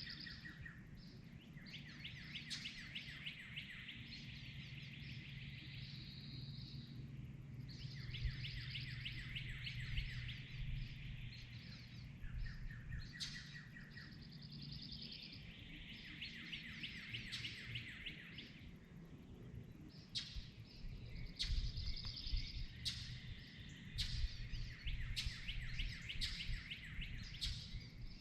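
Dawn chorus of several songbirds singing over one another in repeated fast trills, with sharp short calls coming thick in the second half. A low steady hum runs under the first half.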